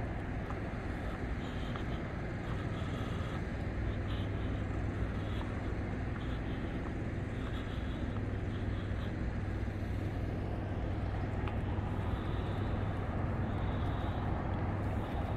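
Steady outdoor city background noise, a continuous low rumble with no distinct events.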